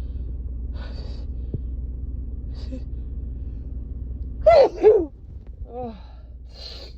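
A woman's head-cold sneeze: a few breathy inhales as it builds, then two loud pitched bursts in quick succession about four and a half seconds in.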